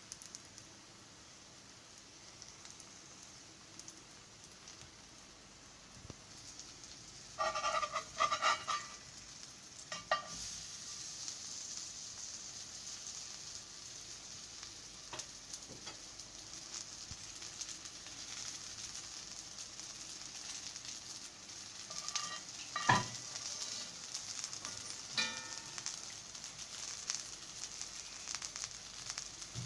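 A pudla, a chickpea-flour pancake, sizzling as it fries in a pan. The sizzle is faint at first and grows steady from about ten seconds in. A few brief ringing knocks come around eight seconds in and again near the end.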